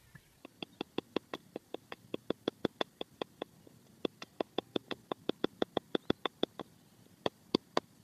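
Rapid wooden knocks of a thick stick hammering a small wooden peg into the ground, about five strikes a second. Two quick runs of strikes with a short pause between, then three more knocks near the end.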